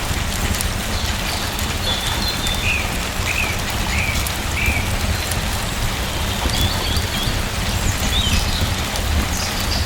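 Steady rain falling, a continuous even hiss with a low rumble beneath, while a bird chirps faintly a few times, four short chirps in a row around the middle.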